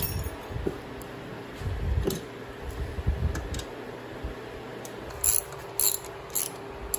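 Handling noises of tools and parts on a wooden workbench, low knocks and a couple of clicks. Near the end come three short bursts of ratchet-wrench clicking about half a second apart, as bolts on a Powerglide transmission's valve body are worked.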